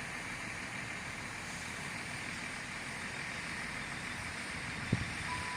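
Steady rumble and hiss of a train at a station platform. There is a single sharp knock near the end, and a steady beep starts just before the end.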